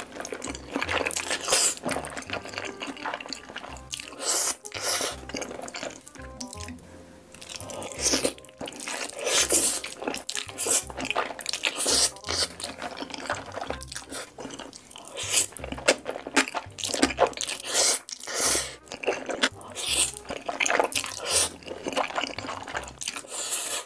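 Close-miked eating sounds: wet slurping and chewing of black-bean-sauce noodles, in many short, irregular bursts, with music underneath.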